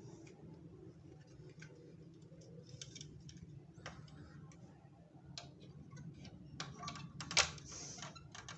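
Small plastic toy parts clicking and tapping as they are handled, in irregular light clicks with one sharper knock about seven seconds in.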